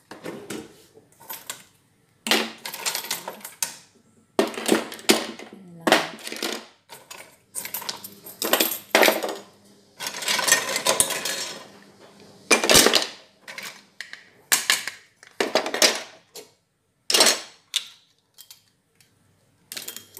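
Cooking utensils clattering and clinking as they are put into a kitchen drawer: a quick run of short rattles, with a longer jumble of them about halfway through.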